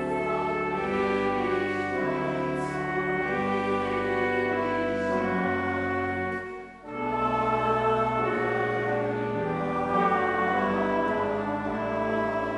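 Organ music in slow, sustained chords, with a short break between phrases about seven seconds in.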